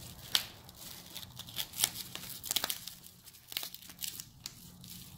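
Clear plastic wrap and tape being peeled and torn off a small jar, with irregular crinkling and crackling.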